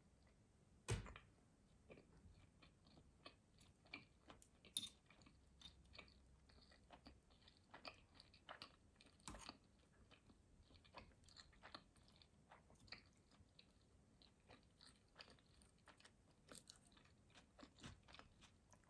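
Faint chewing of sushi rolls heard close up: scattered soft mouth clicks all through, with a sharper knock about a second in and another about nine seconds in.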